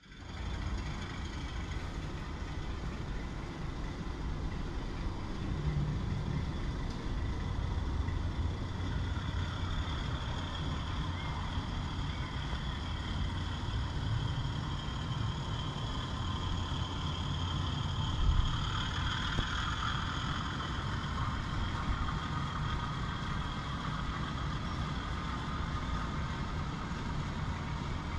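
Steady low engine rumble, with a higher hum that swells through the middle and one brief knock about 18 seconds in.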